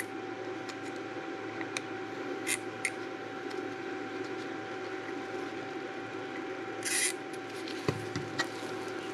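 A desoldering iron's tip melting solder joints on a circuit board, with a few short hisses and small clicks as capacitors are worked loose, over a steady electrical hum. A longer hiss comes about seven seconds in, followed by a couple of clicks as the board is handled.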